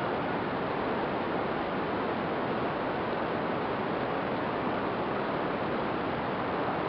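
Steady rushing air noise from the small camera riding on an FPV flying-wing model plane in flight, an even hiss with no clear motor tone.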